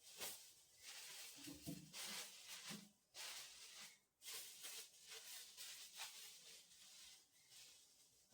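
Faint, irregular rubbing and wiping noises, like a cloth or sponge scrubbing a surface in short strokes, with a few soft knocks about one and a half to three seconds in.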